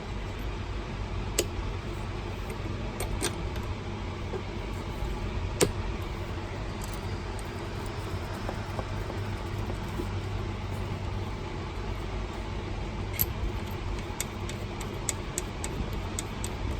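Steady low vehicle hum with scattered light clicks and metallic clinks.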